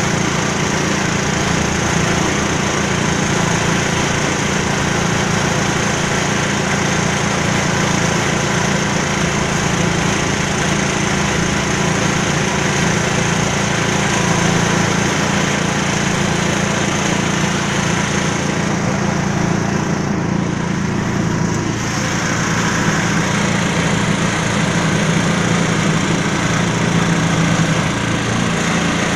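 Small diesel engine of a 280-litre concrete mixer running steadily at a constant speed. Its higher-pitched clatter softens briefly about two-thirds of the way through.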